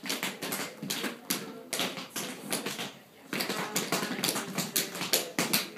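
Shoes tapping and clicking on a wooden dance floor in quick, irregular dance footwork, several clicks a second, with a brief pause about three seconds in.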